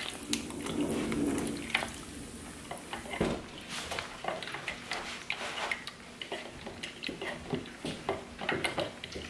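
Soft rustling of a foil bag as plaster powder is tipped into a steel measuring cup, with scattered light taps and scrapes of a wooden stick stirring plaster in a plastic tub.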